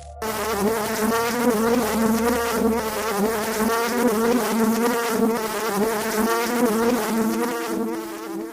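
A flying insect buzzing with its wings: one continuous, pitched drone that wavers slightly in pitch and begins abruptly.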